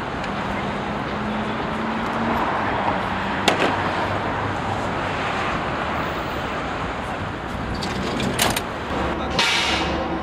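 Steady outdoor street and traffic noise from passing vehicles, with two short sharp knocks, one a few seconds in and one near the end.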